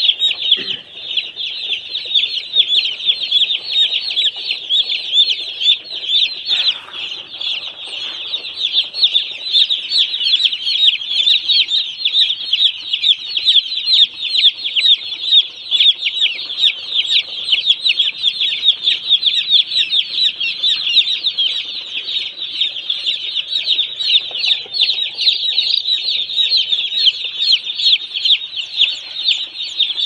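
A large flock of day-old chicks peeping without a break: a dense chorus of many short, high cheeps overlapping.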